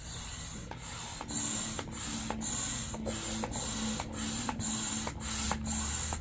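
Hand air pump inflating an Intex inflatable kayak's air chamber, each stroke a rush of air with a light click, about two strokes a second.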